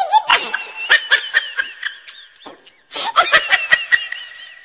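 High-pitched laughter and snickering in quick bursts. It dies away about two seconds in and starts up again about a second later.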